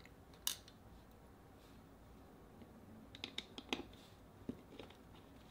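Faint small clicks and ticks of a small screwdriver and tiny screws as the screws holding the Yaesu FT3DR radio's top circuit board are taken out. There is one sharper click about half a second in and a quick run of clicks about three seconds in.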